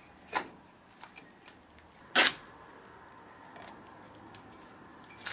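Bricks being set down on a brick chimney: a few sharp knocks, the loudest about two seconds in, with small clicks between.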